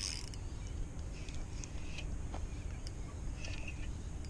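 A steady low outdoor rumble with a few faint short ticks; about three and a half seconds in, a hooked tailor splashes briefly at the water's surface.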